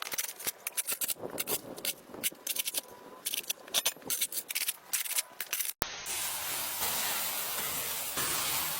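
Irregular scrapes and clicks for about six seconds, then after a sudden cut a steady spraying hiss from a pressure washer.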